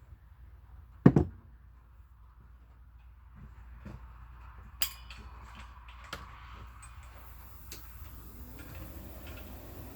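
Metal clanks and taps from tools and parts being handled, the loudest a sharp clank about a second in and a ringing clink near the middle. A faint steady hiss comes in about seven seconds in.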